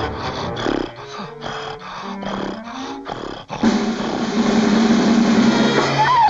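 Orchestral cartoon score playing, then about three and a half seconds in a long, loud animal-roar sound effect over the music.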